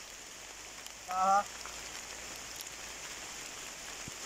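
A steady hiss, with one brief pitched call about a second in that is the loudest sound.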